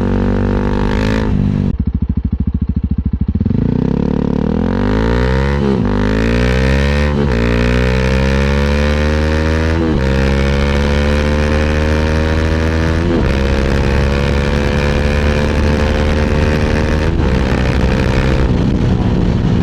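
Honda CRF300L single-cylinder engine running through a loud budget aftermarket muffler freshly repacked with fiberglass, heard from the rider's back. It pulls from low revs, and the note climbs with several drops in pitch as the rider shifts up, then settles into a steady cruise. The repack has left it about as loud as before.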